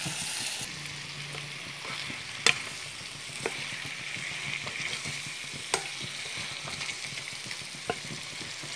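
Chicken curry sizzling in a pan as it is stirred with a steel spoon, a steady hiss broken by a few sharp clicks of the spoon against the pan, the loudest about two and a half seconds in.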